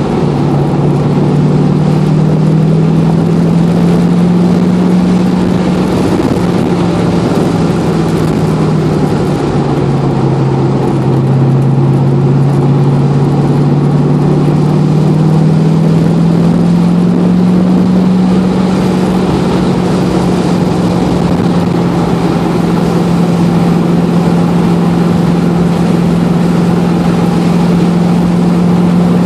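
Engine of a 1993 Mazda RX-7 swapped to a GM LS1 V8, heard from inside the cabin, running at steady moderate revs under road and wind noise. Its pitch sags around ten seconds in, climbs back by about eighteen seconds, then holds.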